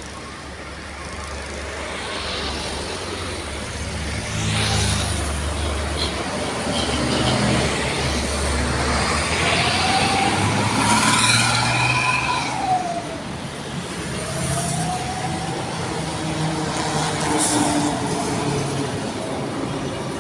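A heavy road vehicle passing with its engine rumbling, while a loud vehicle horn sounds in gliding tones that rise and fall through the middle.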